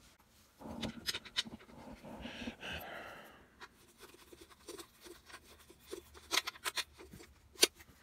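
Plastic power-tool battery case being handled and screwed shut. Rustling and scraping come first, then a run of sharp clicks, the loudest near the end.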